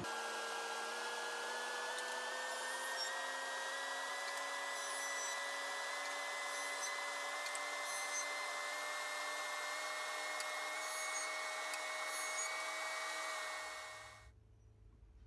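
Jointer (surface planer) running: a steady machine hum whose pitch creeps slowly upward, over a hiss of noise. It cuts off suddenly about 14 seconds in.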